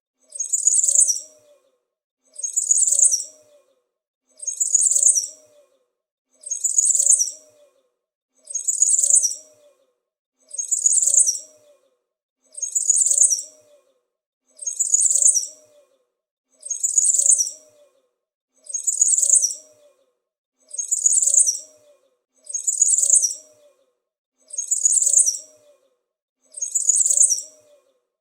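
A small bird chirping high and fast, in bursts of about a second that repeat every two seconds, each burst identical: one recorded call looped.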